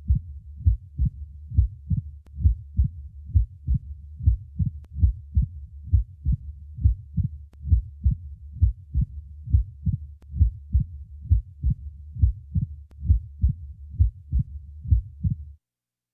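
Human heart sounds: a steady heartbeat at about 70 a minute, each beat a sharp low thud, with a low continuous sound between the beats. It stops shortly before the end.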